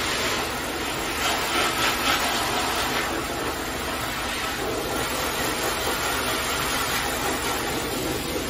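High-velocity pet grooming dryer blowing a steady rush of air through a hose nozzle onto a wet dog's long coat. It gets louder and brighter for a couple of seconds about a second in.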